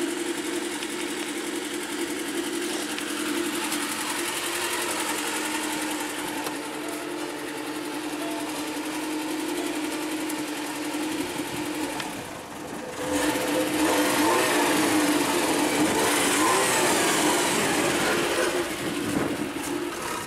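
VAZ-2110's four-cylinder petrol engine running steadily at idle, just restarted after watery fuel was drained from its tank. It dips briefly about two-thirds of the way through, then runs noticeably louder for several seconds before easing near the end.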